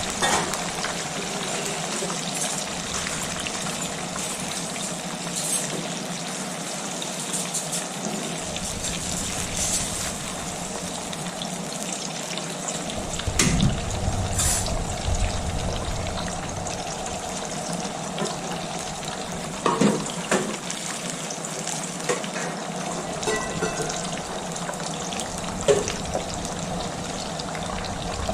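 Steady sizzling of food frying in a pan, with a few sharp knocks of a utensil.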